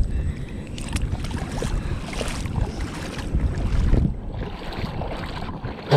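Wind buffeting the microphone, with irregular splashing and sloshing of shallow water as the RC boat is lifted out by hand. No motor is heard running.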